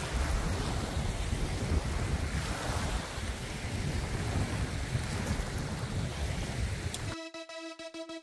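Wind noise on the microphone, a steady low rush with some water sound, which cuts off abruptly near the end into electronic music with held synth notes.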